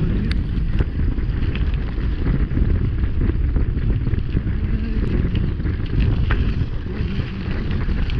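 Wind buffeting a GoPro's microphone on a mountain bike descending at about 25–28 km/h, mixed with tyre rumble over the rough road surface. Scattered short clicks and rattles come through it.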